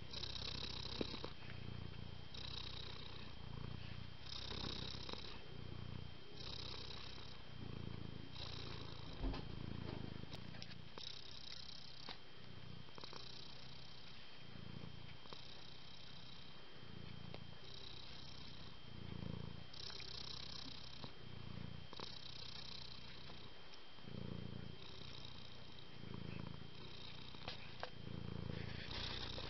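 Domestic cat purring steadily, the sound swelling and changing with each breath in and out, about one full cycle every two seconds.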